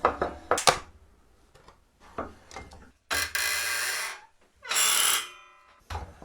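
Sharp metal taps as a punch is struck through a stainless steel disc held in a vise, piercing grater holes. Partway through come two steady, noisy bursts, about a second and half a second long, the second trailing off into a ringing tone.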